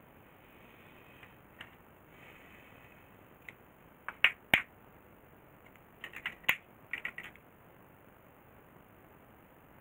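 Scissors snipping adhesive tape: two sharp snips about four seconds in, then a cluster of quick smaller clicks and taps a couple of seconds later. Faint rustling of tape before the snips.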